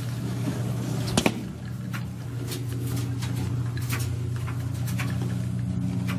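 A steady low mechanical hum made of several even tones, growing a little louder, with a few sharp clicks on top, the loudest a quick double click about a second in.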